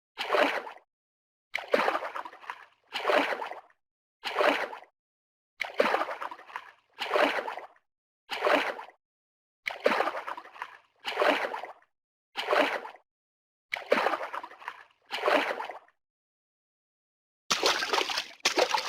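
Water sloshing and splashing in regular strokes, about one every second and a half, each lasting under a second with silence between, like a paddle or a swimmer's strokes. Near the end the strokes come quicker and run together.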